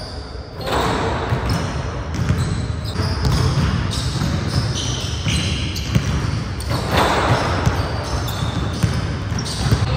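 Basketballs bouncing on a hardwood gym floor, with scattered sharp knocks and the echo of a large hall.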